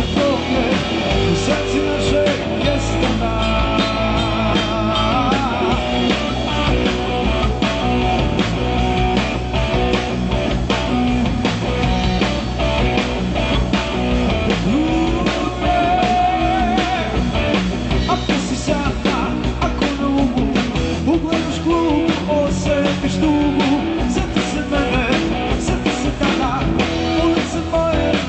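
A live band playing rock music, with guitar, drums and a singer.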